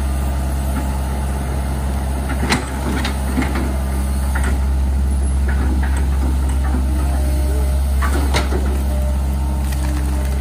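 Hydraulic excavator's diesel engine running steadily as the machine digs a ditch in wet soil, with a few knocks and scrapes of the bucket, the loudest about two and a half seconds in.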